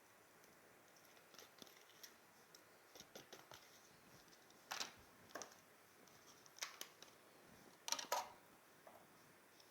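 Quiet kitchen handling sounds as chicken fesenjan is put into a pan: scattered soft clicks and scrapes, with a sharper one about five seconds in and a quick pair about eight seconds in.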